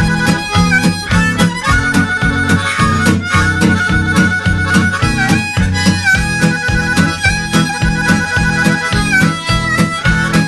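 Blues music: a harmonica playing held, bending notes over a steady guitar rhythm, with no singing.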